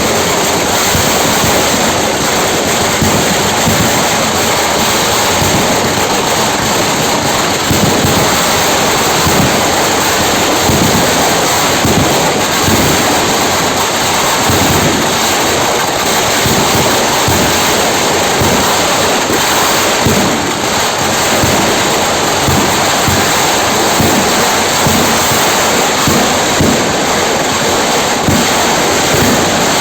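Fireworks crackling and hissing without a break: a dense, loud rushing crackle that keeps on steadily.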